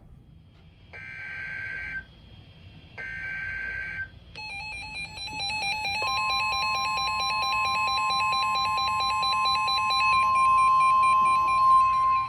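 Emergency Alert System broadcast tones: two one-second screeching digital data bursts of the alert header, then the harsh steady EAS attention tone, joined about six seconds in by a second, purer steady alert tone, signalling a new severe thunderstorm warning.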